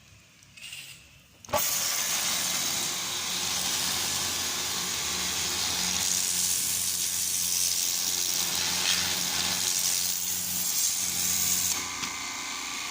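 Industrial pressure washer with a three-phase electric motor and Hawk pump starting suddenly about a second and a half in, then running steadily: a motor hum under a loud high-pressure hiss. Near the end the hiss drops away and the machine keeps running, quieter.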